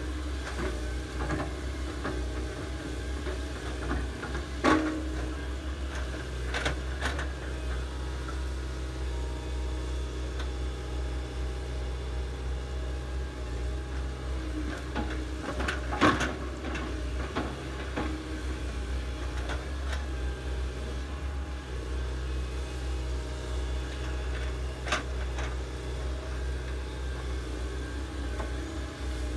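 Komatsu hydraulic excavator's diesel engine running steadily as it digs, with a few sharp knocks from the working machine, the loudest about 5 and 16 seconds in.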